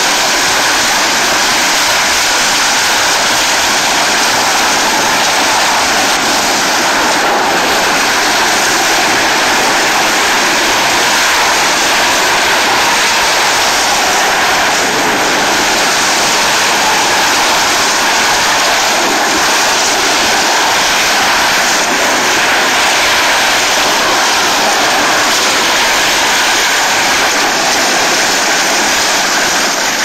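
Steady, loud grating rush of a refrigerator cabinet sliding over asphalt with a rider inside, unbroken throughout.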